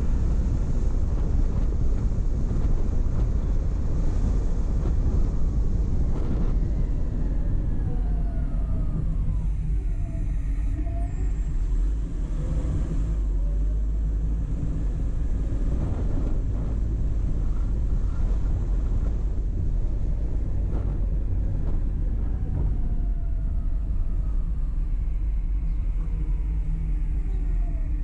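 Steady low rumble of road and engine noise from a car being driven. Around the middle and again near the end, passing vehicles add a whine that slides in pitch.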